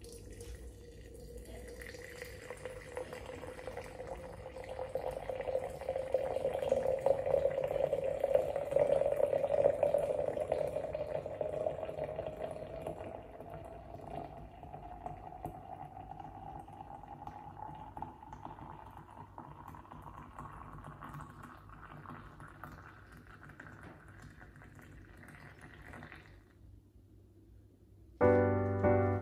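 Hot water poured in a thin steady stream into a glass pitcher over loose black tea leaves. The pitch of the filling rises steadily as the pitcher fills, and the pouring stops near the end. Piano music begins just after.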